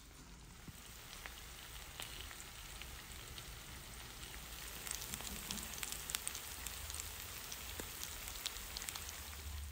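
Small whole flour-dredged fish frying in oil in a round pan: a steady sizzle with scattered crackles and pops, more frequent from about halfway.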